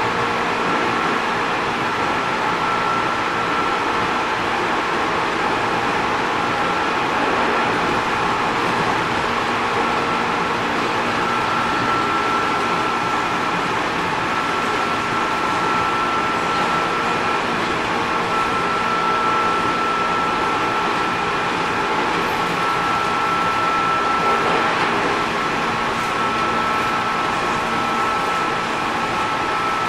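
Interior noise of a JR 205 series 600 subseries electric train: a steady rumble and hum with a steady high whine over it.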